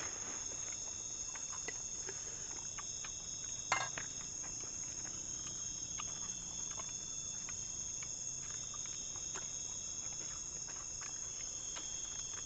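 Steady, high chorus of night insects chirring together, with scattered light clicks and one sharper click about four seconds in.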